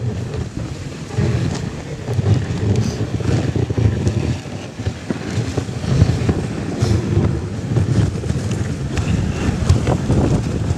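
Dog sled runners rumbling and scraping over packed snow, with wind buffeting the microphone.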